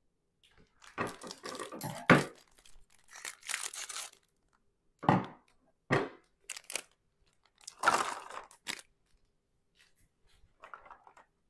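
A clear plastic bag of small plastic game pieces crinkling and rustling as it is handled and opened. There is a long stretch of crinkling over the first few seconds, then several shorter bursts.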